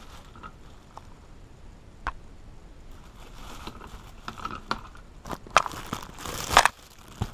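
Plastic packaging being pulled off a hex driver tool set: scattered crinkles, crackles and clicks, with the loudest crackles about three-quarters of the way through.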